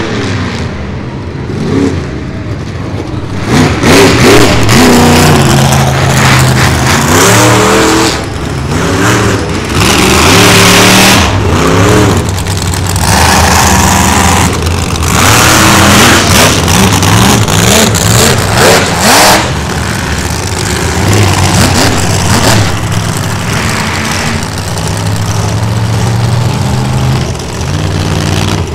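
Monster truck engine revving hard, its pitch climbing and falling again and again, loud throughout.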